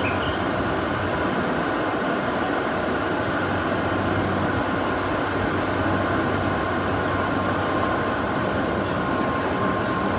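Shinkansen bullet train noise: a steady rumble with a faint steady whine.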